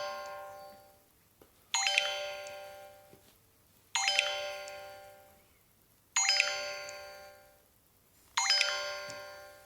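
Alcatel One Touch OT-810 mobile phone ringing for an incoming call through its loudspeaker: a bell-like chime ringtone struck about every two seconds, each ring fading away before the next.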